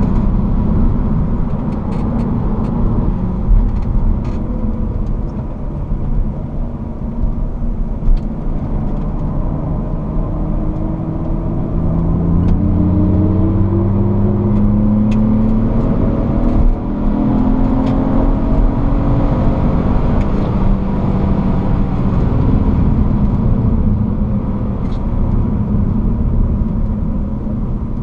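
BMW E46 330Ci's 3.0-litre straight-six heard from inside the cabin at track speed, over steady road and wind noise. About halfway through, the engine note climbs under acceleration, drops briefly at a gear change, then climbs again.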